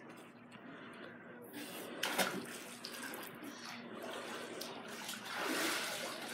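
Water splashing in a swimming pool, with a short, sharper splash about two seconds in and a longer, louder rush of splashing near the end.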